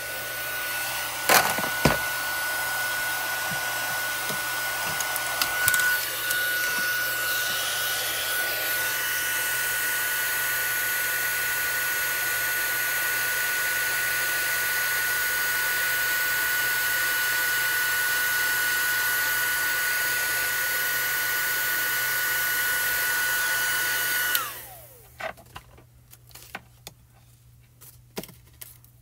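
Handheld embossing heat tool blowing steadily with a thin high whistle, melting embossing powder on a stamped card, with a couple of sharp clicks near the start. Near the end it is switched off and winds down, leaving only a few faint taps.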